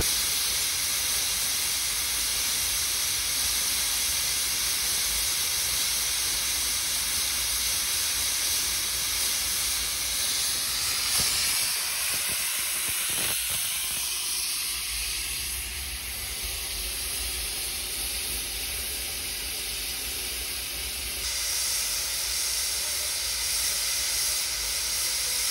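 Steady hiss of steam venting from a 1907 Baldwin steam locomotive standing still.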